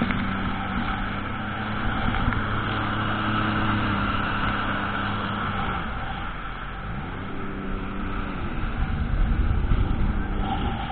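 Sea-Doo jet ski engine running at speed over a steady rush of wind and water. After about six seconds its pitch drops and climbs back a couple of times as the throttle is eased off and opened again.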